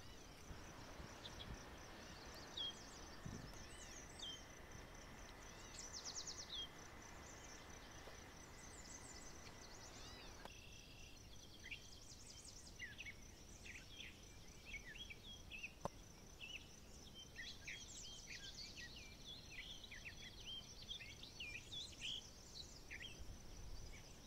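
Faint birdsong over a steady high insect trill, the chirps getting busier in the second half. A faint steady hiss under it cuts off about ten seconds in.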